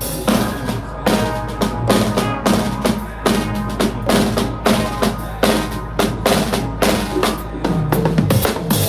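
Music with a steady, loud drum-kit beat of about two to three hits a second over bass and other instruments, played through a PA system in a sound check. The beat drops out at the very end.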